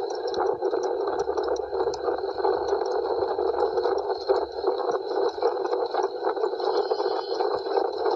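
Steady running noise of a motor vehicle moving along the road, a dense rushing sound with scattered light clicks.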